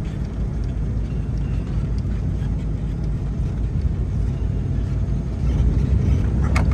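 Low, steady rumble of a vehicle rolling slowly, heard from inside the cab, growing louder about five and a half seconds in.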